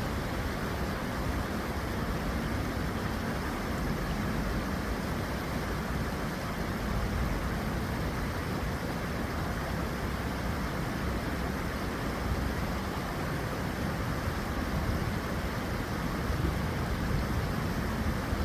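Steady rush of water flowing in a city stream, with a low rumble underneath.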